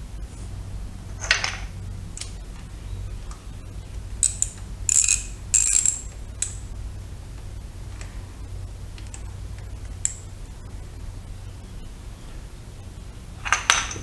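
Ratchet wrench on the rear engine-balancer pinch bolt of a 2005 Yamaha FJR1300: scattered metallic clinks and short ratcheting clicks as the bolt is tightened to hold the balancer's new setting, with a cluster of clicks near the end.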